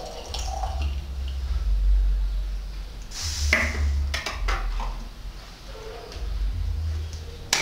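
Light clicks and taps from a plastic funnel being handled and set down on a bench, over an uneven low rumble. The sharpest click comes near the end.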